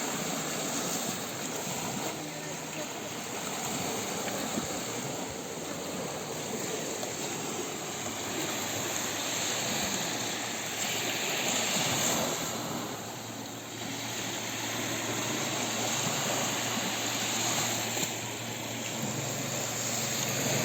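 Small sea waves washing onto a beach: a steady surf hiss that swells and eases. A low, steady engine drone joins about two-thirds of the way in.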